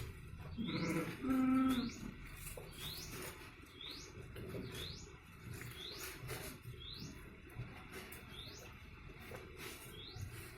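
A bird repeats a short rising chirp about every three-quarters of a second. About half a second in, a farm animal gives one loud call in two parts, lasting about a second and a half.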